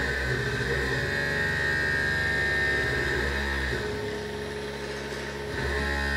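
Borsti bristlebot's vibration motors buzzing steadily as the robot drives, easing off a little after about four seconds and picking up again near the end.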